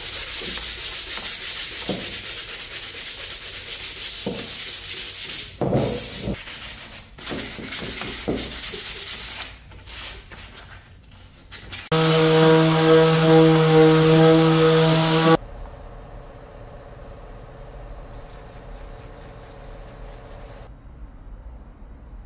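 Power sander sanding chestnut wood parts, a loud even rasping hiss that stops and starts a few times. About twelve seconds in, a loud steady machine hum runs for about three seconds, then a fainter hum carries on until shortly before the end.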